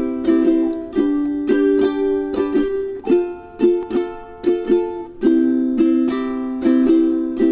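Ukulele strumming chords at a steady rhythm, about two strokes a second, the chord changing every couple of seconds; an instrumental passage with no singing.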